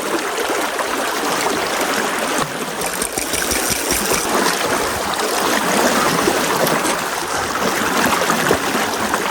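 River water flowing steadily over rocks, an even rushing sound.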